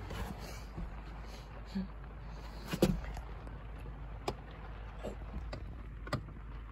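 A few scattered knocks and creaks from someone moving about on wooden attic joists, with the loudest knock about three seconds in, over a steady low hum.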